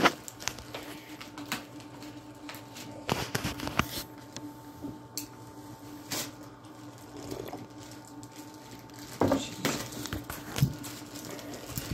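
Plastic mailer bag crinkling and rustling as it is pulled open by hand, with several sharper crackles among quieter rustles.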